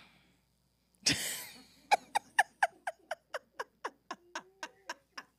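A woman laughing: a breathy burst about a second in, then a long run of short "ha" pulses, about five a second, each dropping in pitch and fading toward the end.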